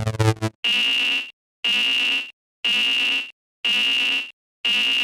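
Electronic buzzer-like warning tone sounding five times, about once a second, each pulse lasting under a second: a novelty level-crossing alarm. A lower, busier pulsing sound ends about half a second in, just before the first tone.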